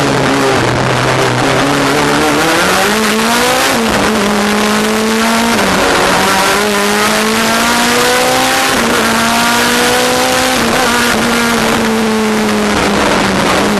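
Race car engine heard from inside the cockpit, pulling hard. The pitch climbs from about two seconds in, drops sharply at gear changes near four and six seconds, then holds and eases off near the end.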